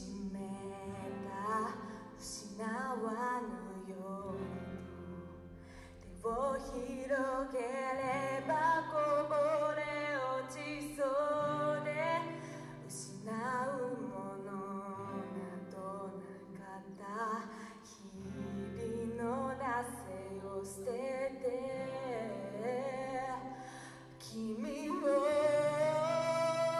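Live acoustic band playing a rock song: a girl singing over acoustic guitars and bass, with cajon and tambourine hits. The band swells louder near the end.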